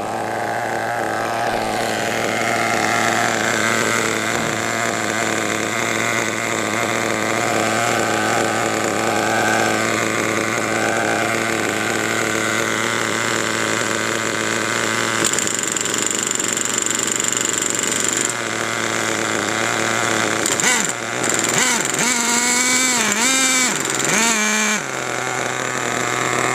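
Two-stroke nitro glow engine of a HotBodies Lightning GTX2 RC truck running at a steady high idle, then revved up and down several times about three-quarters of the way through.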